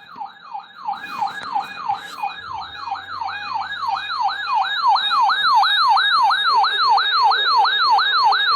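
Weather-radio receiver's electronic alert siren, set off by the weekly NOAA Weather Radio test: a loud warbling tone sweeping up and down about three times a second, which cuts off abruptly near the end.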